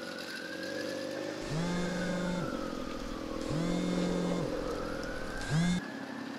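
Mobile phone on vibrate buzzing: two buzzes of about a second each, a second apart, then a short third buzz cut off as the call is answered. Road traffic runs behind it.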